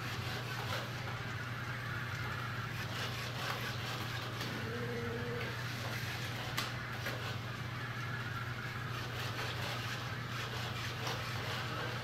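iRobot Roomba Discovery driving itself across a tile floor toward its charging dock on a seek-dock command: a steady whir over a constant low hum. A short low tone sounds about five seconds in, and a single sharp click about six and a half seconds in.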